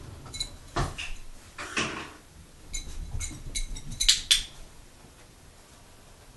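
Scattered light clicks and clinks as a dog's paws and nails tap and shift on the overturned dog bowl it is pivoting on, with a close pair of sharper clicks about four seconds in.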